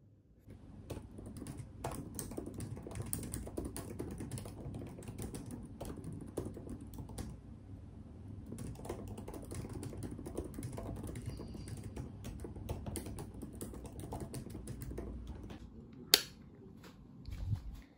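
Typing on a laptop keyboard: a long run of quick keystrokes with a short pause about halfway. Then a single sharp click of a rocker wall light switch near the end, the loudest sound.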